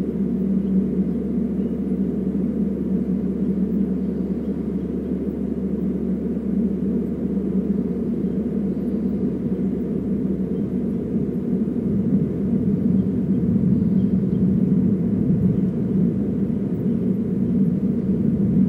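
Steady low rumbling background noise that stays even throughout, with no bird calls standing out.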